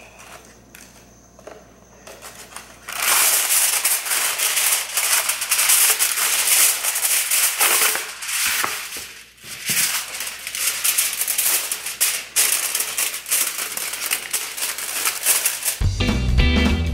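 Aluminium foil crinkling and crackling as a sheet is handled and wrapped around a wire wreath frame, a dense run of small sharp crackles with a short lull in the middle. Music with guitar comes in near the end.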